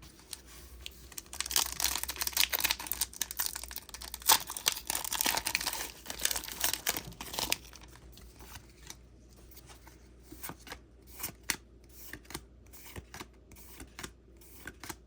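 Foil wrapper of a Pokémon booster pack being torn open and crinkled for about six seconds, then light scattered clicks and slaps as the cards are handled.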